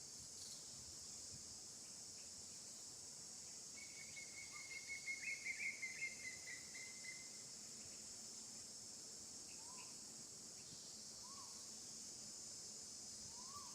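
Steady high-pitched insect chorus. A pulsing trilled call runs for about three seconds starting about four seconds in, and three short rising-then-falling chirps follow later.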